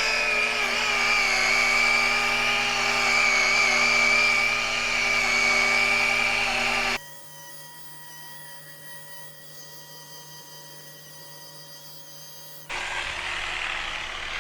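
Handheld rotary power tool, used for glass scratch grinding and polishing, running on the glass with a steady high whine. It cuts off abruptly about seven seconds in, leaving a quieter steady hum, and a louder, even rushing noise starts again near the end.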